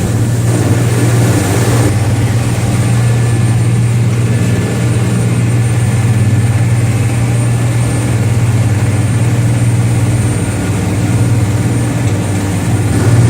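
Fishing boat's engine running steadily underway, a loud, even low drone under a steady hiss that is a little stronger in the first two seconds.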